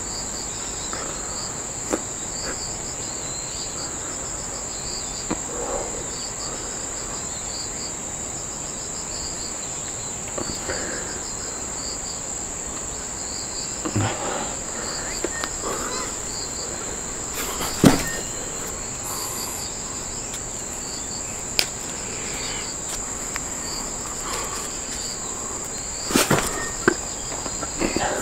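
Insects calling in one steady high-pitched note over a quicker pulsing chirp a little lower. A few short knocks and rustles break in close by, the loudest about two-thirds of the way through and again near the end.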